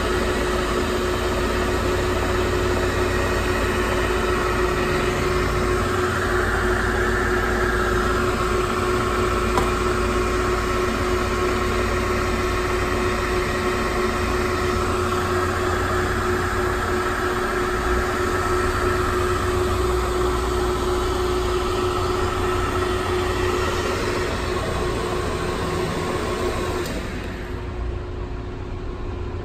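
Monarch Model K engine lathe running: a steady mechanical hum with one constant tone, until the sound drops away sharply about 27 seconds in as the machine stops.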